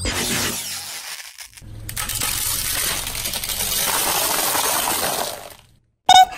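Brittle plastic tubes cracking and crunching under a slowly rolling car tyre: a dense run of small cracks and clinks lasting about four seconds, then cutting off.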